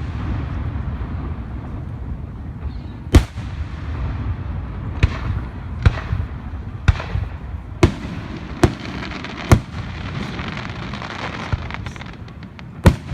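Fireworks display: aerial shells bursting with about eight sharp booms, mostly a second or so apart, over a continuous rumble and crackle of further bursts.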